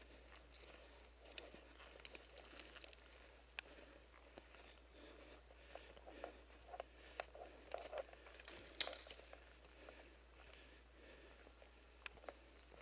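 Faint footsteps crunching through dry grass and twigs, with scattered soft crackles of brush and one sharper snap about two-thirds of the way through.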